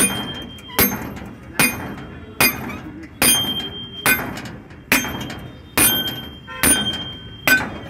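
Steel bar pounded down onto a driver plate to drive a cylinder liner into a truck engine block: sharp metal-on-metal strikes about every 0.8 s, ten in all, each with a brief ring.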